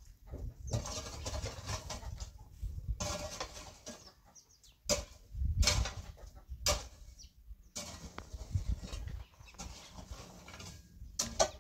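Shovel scraping and digging into dry, stony earth in repeated strokes, with a few sharp strikes against stones.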